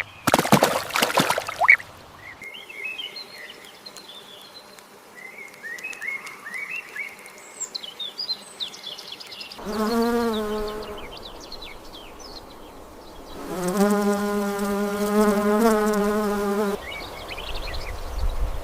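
A string of animal sound clips: a loud rasping call in the first two seconds, then small birds chirping faintly. After that comes an insect's buzzing drone, once briefly and then again for about three seconds, wavering slightly.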